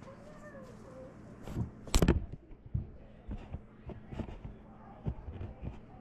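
Knocks and clicks of containers and jars being handled and set on refrigerator shelves, one loud knock about two seconds in followed by several lighter taps, over a steady low hum.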